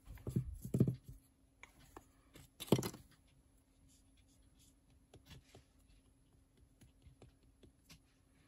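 Wood-mounted rubber stamp pressed down onto paper on a tabletop: a few dull thumps in the first second and a sharper knock near three seconds in. After that, faint light taps as a small ink pad is dabbed onto the stamp's rubber face.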